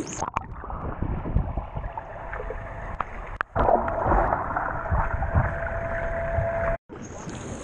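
Muffled underwater sound from a submerged action camera: water rushing and bubbling around a swimmer, with low thumps from his strokes and kicks. A faint steady tone runs through the second half, and the sound briefly drops out twice.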